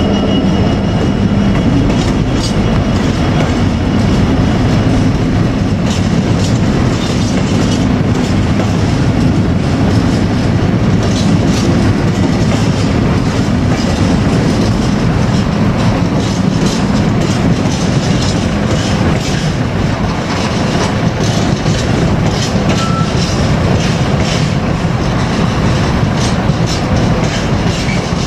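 Long freight train of mostly empty intermodal container flat wagons rolling steadily past: a continuous rumble of wheels on rail with rapid clickety-clack over the rail joints.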